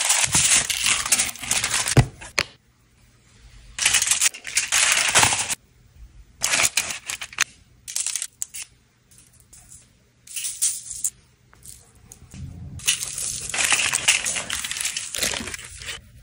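Aluminium foil crinkling and rustling in irregular bursts as raw ribs are handled and seasoned on it, with a sharp click about two seconds in.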